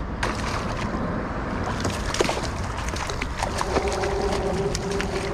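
Tautog (blackfish) splashing and thrashing at the water's surface alongside a kayak as it is landed, with wind buffeting the microphone.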